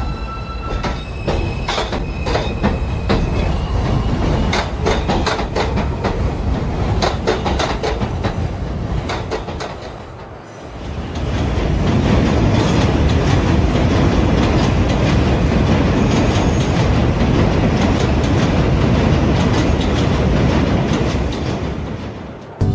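Subway train running on rails: a steady rumble with quick clicks of the wheels over the rail joints and a faint whine in the first few seconds. The sound dips briefly about ten seconds in, then runs on louder.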